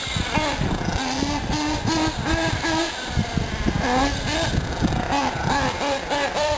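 Nitro engine of a 1/8-scale radio-controlled short-course truck running at high revs, its pitch rising and falling with the throttle.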